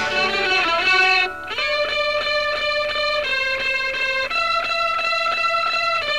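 Music: a 1960s rock recording led by an effects-treated electric guitar playing a quick, evenly pulsed repeating riff that shifts pitch a few times.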